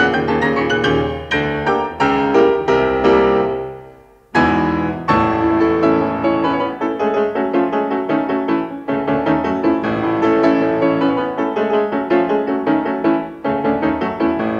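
Piano music: a few struck chords ring and die away about four seconds in, then a fresh chord starts a steady run of notes.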